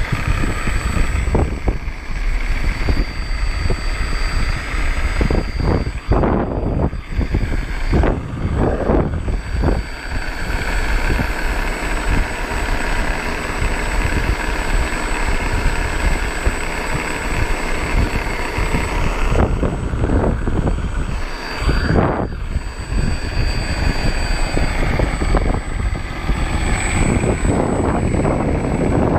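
Wind buffeting the microphone in gusts, over the thin, steady high whine of an E-flite F4U-4 Corsair RC model's electric motor turning its propeller as it taxis on grass.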